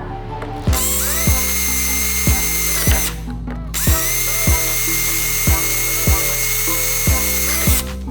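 Background music with a steady kick-drum beat, over the high whine of a small power tool's motor. The whine spins up about a second in, stops for about a second near the three-second mark, then runs again until near the end.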